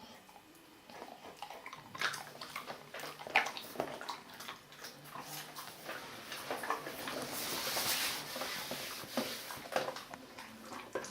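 A dog moving about and busy with something: scattered clicks and scuffles, with a longer stretch of hissing noise building toward a peak about eight seconds in.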